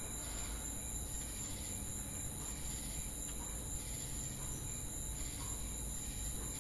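Night insect chorus of crickets: a steady, shrill chirring high up, with a lower chirping layer that pulses about once every three-quarters of a second.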